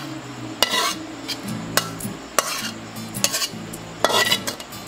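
A slotted metal spatula scrapes a frying pan in about five short strokes, pushing sticky glazed octopus into a bowl. A faint steady low hum runs underneath.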